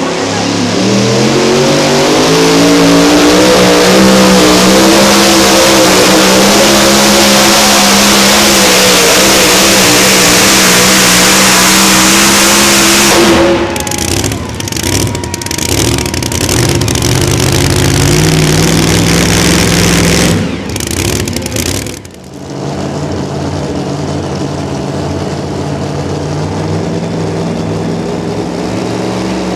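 A pulling vehicle's high-power engine revs up over the first few seconds and runs flat out under load. About halfway through, the sound breaks off abruptly and stutters for a couple of seconds. It picks up again briefly, cuts once more, and then settles to a lower, steady running note.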